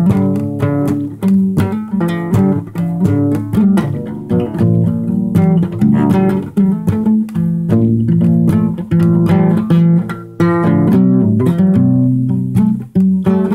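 Solo acoustic guitar played freely, with quick picked notes and chords struck several times a second that ring over a low bass register.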